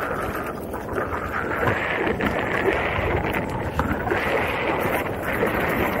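Wind buffeting a moving microphone over the even rumble of tyres rolling on a dirt trail, with small scattered ticks of grit and gravel, during a fast electric unicycle ride.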